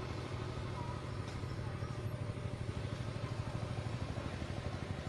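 An engine idling steadily: a low, fast-pulsing hum.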